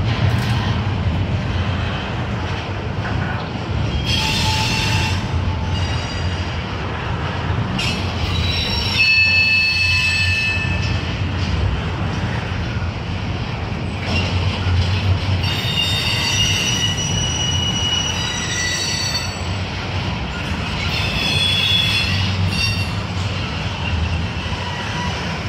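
Double-stack intermodal freight train of container well cars rolling past with a steady low rumble. High-pitched wheel squeal comes and goes several times: about four seconds in, around nine to eleven seconds, from about fifteen to nineteen seconds, and again around twenty-two seconds.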